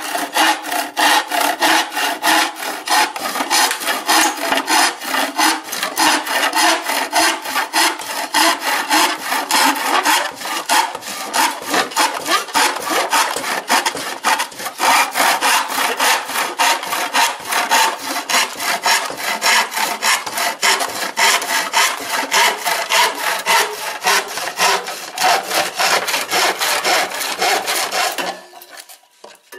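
Handsaw cutting across a wooden board by hand, in quick, even push-and-pull strokes, about three a second. The strokes stop suddenly near the end as the cut goes through.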